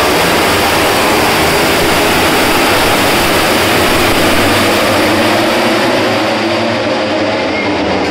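A pack of MotoGP racing motorcycles passing at full throttle, their 1000 cc four-cylinder engines at high revs in one dense, loud wail that eases slightly near the end as they pull away.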